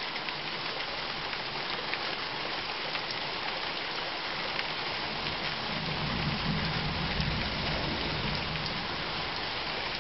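Heavy rain falling steadily in a thunderstorm, with many small ticks of drops striking nearby surfaces. A low rumble swells about six seconds in and fades again over a couple of seconds.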